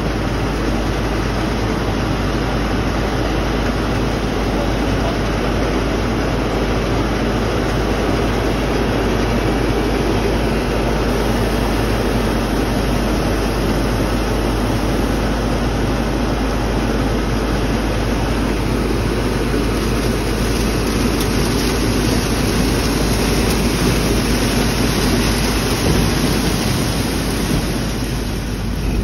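Corn ear harvester running steadily, its elevator conveyor dumping ears of corn into a trailer in a continuous dense noise over a low machine hum.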